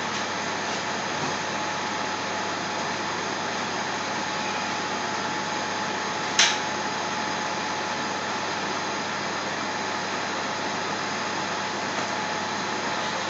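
Steady rushing noise at a gas cooker, with a faint steady tone through it, and one sharp click about six and a half seconds in.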